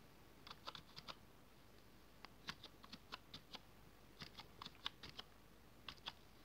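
Faint computer keyboard keystrokes, tapped in short quick runs of a few keys each while digits are entered.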